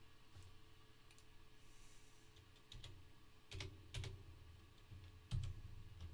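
Scattered keystrokes on a computer keyboard: a few separate, irregular faint clicks, the loudest about five seconds in.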